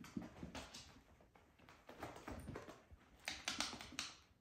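Kittens' paws and claws scrabbling on a felt cat tunnel and a hard floor as they wrestle: irregular scratching and rustling, with a quick cluster of sharper clicks about three seconds in.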